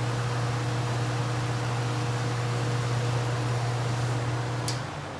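Vintage GE W16 electric fan with metal blades running on high: a steady motor hum under an even rush of air. A sharp click comes near the end, after which it runs slightly quieter.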